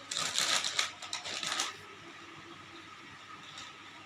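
Gift packaging rustling and crinkling as it is handled, for about the first two seconds.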